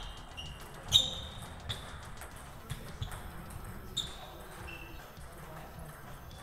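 Table tennis rally: the ball clicks sharply off rackets and table, each hit with a short ringing ping. There are about seven hits in the first five seconds, the loudest about a second in.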